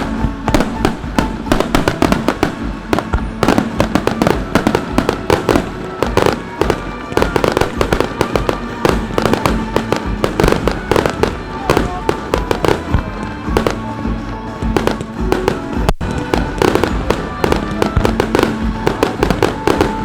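Fireworks finale barrage: a continuous rapid string of shell bursts and crackling bangs, many a second with no pause, with music playing underneath.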